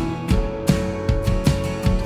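A band playing: a Fender Stratocaster electric guitar plays sustained notes over drums keeping a steady beat.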